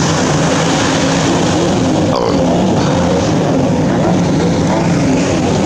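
Outboard motors on Thundercat inflatable racing boats running at racing speed, the engine note wavering and gliding in pitch.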